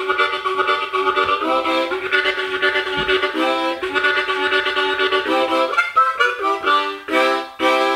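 Harmonica played in a train imitation: long held chords for the first few seconds, then short chords repeated in a chugging rhythm.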